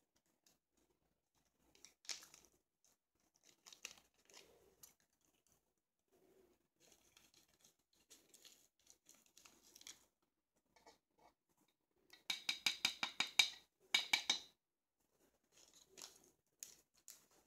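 Faint crafting sounds of small plastic containers and packaging being handled: scattered crinkles and clicks. About twelve seconds in comes a fast rattling run of about ten ticks a second lasting a second, followed by a shorter dense burst.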